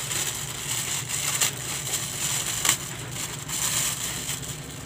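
Clear plastic bag crinkling and rustling as it is handled and pulled off a microphone shock mount, with two sharper crackles about a second and a half and nearly three seconds in.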